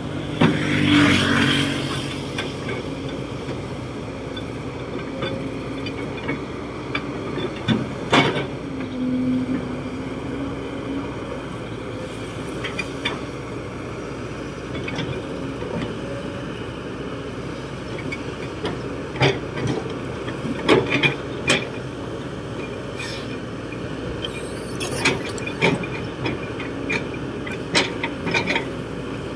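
Kobelco SK200-8 Super X excavator's diesel engine running steadily as the bucket digs soil. The engine note swells briefly about a second in, and sharp knocks and clanks from the bucket working in the dirt come scattered through, most often in the second half.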